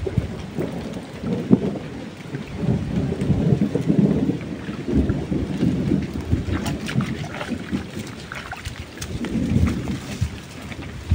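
Rain falling, with low rumbles of thunder that swell and fade several times.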